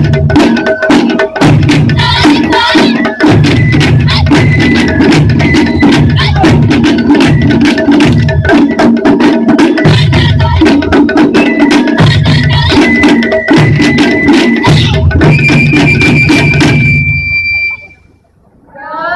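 Japanese taiko drum ensemble playing a fast, driving rhythm: deep drum beats in repeated phrases under rapid sharp strikes. The piece ends suddenly about seventeen seconds in.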